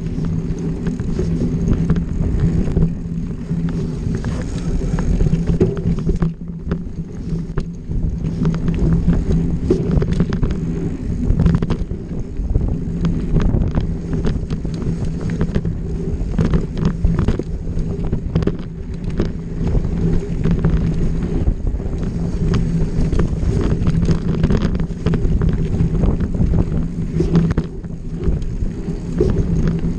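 Enduro dirt bike's engine running steadily over a trail, with wind buffeting the microphone and frequent knocks and rattles from the rough ground.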